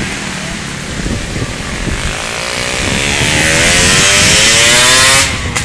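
A motor vehicle engine revving up, its pitch rising steadily for about three seconds as it grows louder, over gusting wind noise on the microphone. It cuts off abruptly near the end.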